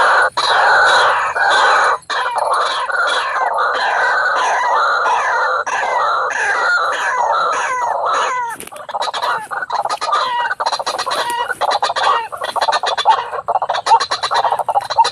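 White-breasted waterhens calling: a loud, dense run of short, harsh, repeated 'ruak-ruak' notes that never lets up, with a brief dip about eight and a half seconds in.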